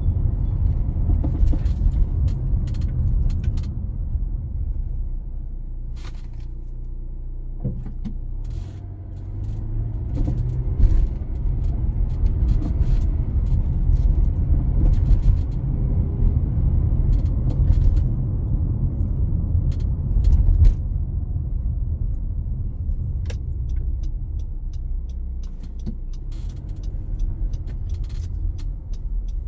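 Inside a moving car: a steady low rumble of road and engine noise, with scattered light clicks and rattles.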